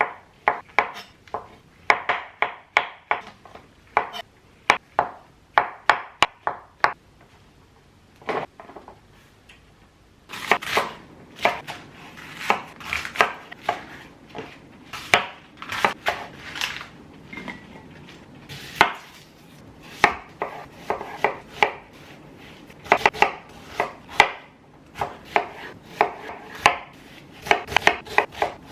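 Knife chopping on a cutting board: runs of sharp, irregular chops, a few a second, broken by a pause of about three seconds, with one lone chop, about a quarter of the way through.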